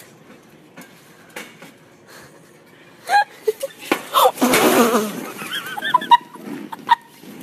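A woman tumbling headfirst into a wire cage of rubber playground balls: after about three seconds of quiet store background comes a sudden commotion, a loud wavering cry, then laughing.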